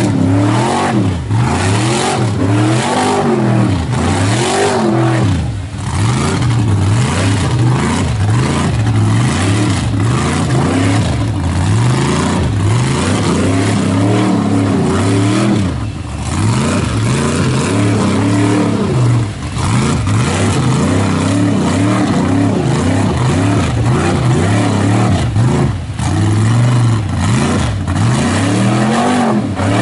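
Mud truck's engine revving hard in repeated surges, the pitch climbing and falling every second or two, as it spins its tyres through deep mud.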